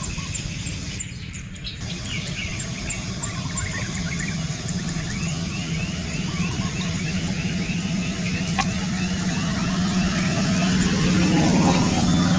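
Outdoor ambience: a steady low drone that grows louder near the end, under a long run of short repeated chirps, about three a second. There is one sharp click a little past halfway.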